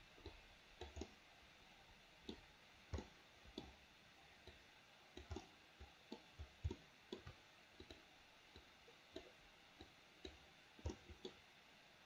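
Computer mouse button clicks, irregular and often in quick pairs, from dragging sculpt strokes, over faint room hiss.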